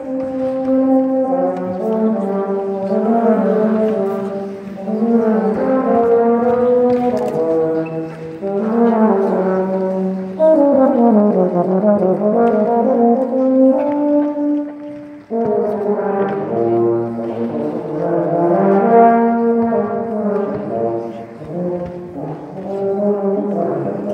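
Euphonium playing a melody in held notes, with a quick run down and back up about halfway through.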